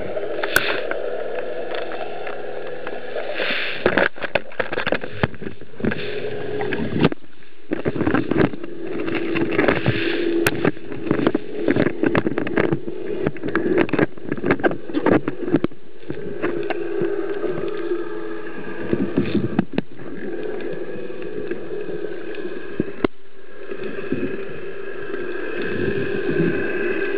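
Underwater sound picked up by a diver's camera: a steady low hum with irregular crackling and knocks, thickest in the middle stretch, as water and handling noise reach the housing.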